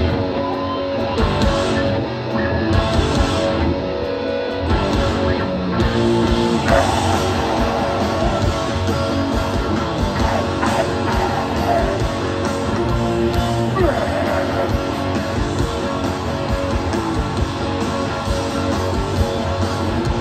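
Hardcore punk band playing live: electric guitar and drums, loud and continuous.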